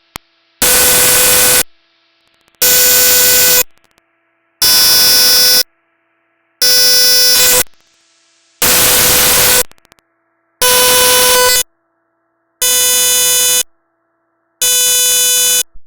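Buzzy tone from a radio receiver picking up an RP2040 PWM AM beacon, sounding in about one-second beeps every two seconds, eight times, with static under each beep and quiet gaps between.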